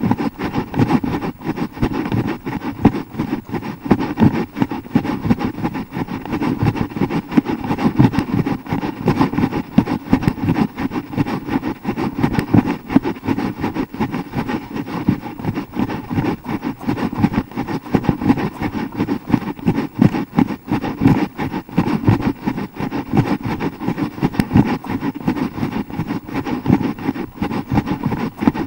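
Wind buffeting and handling rumble on a hand-held action camera's microphone carried at a run: a constant rough rumble full of quick, uneven knocks.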